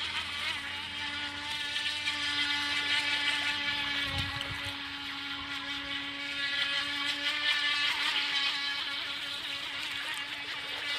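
JJRC radio-controlled speedboat's water-cooled electric motor and propeller running at speed: a steady high-pitched whine that holds an even pitch.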